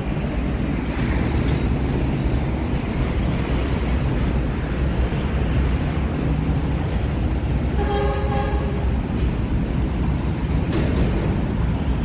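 Steady low rumble of city traffic, with a horn sounding once for about a second around eight seconds in.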